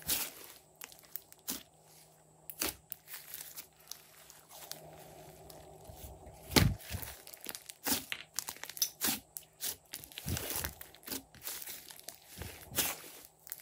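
Hands squeezing, folding and stretching a large mass of pink and mint slime, giving irregular sharp pops, crackles and tearing sounds. The loudest pop comes a little past the middle, as the slime is pulled up off the table.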